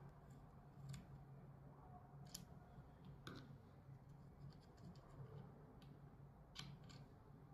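Near silence with a handful of faint, scattered clicks from a small hex key and screw being worked in the metal scanner-head housing, over a low steady hum.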